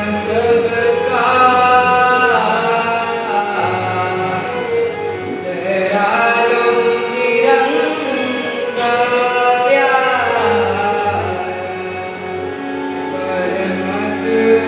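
A singer with harmonium accompaniment, the voice sliding between long held notes over the harmonium's steady reedy chords.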